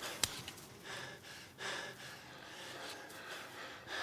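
Men breathing hard and gasping, out of breath after a brawl, with a single sharp click about a quarter of a second in.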